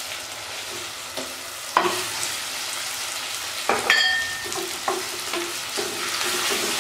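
Hot oil sizzling in a terracotta pot as raw chicken pieces go in. Sharp knocks come near two seconds and near four seconds, and a short ringing clink follows just after four. After that a wooden spoon stirs and scrapes against the clay in quick strokes over the frying.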